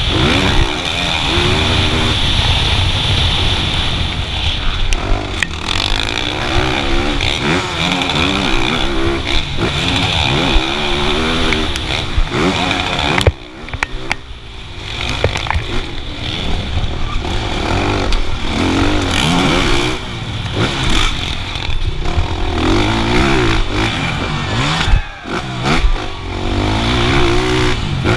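Motocross bike engine heard from an onboard camera, revving hard and rising and falling in pitch again and again as the throttle is worked through the track. The engine drops off briefly about 13 seconds in and again near 25 seconds, when the throttle is cut.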